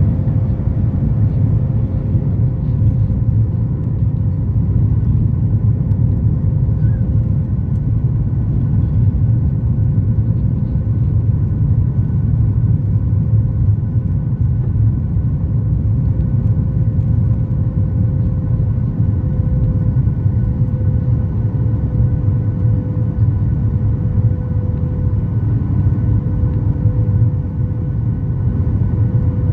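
Boeing 737 MAX 8 cabin noise: the steady low rumble of the CFM LEAP-1B engines and airflow, with a faint steady hum on top.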